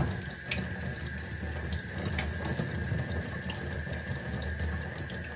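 Sink tap running steadily, the water splashing over hands and a kitten being rinsed under the stream.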